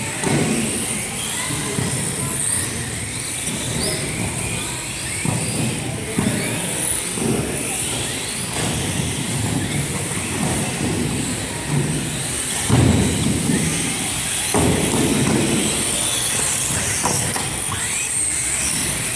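Several small electric radio-controlled off-road cars racing, their motors whining high and rising and falling in pitch as they accelerate and brake around the track.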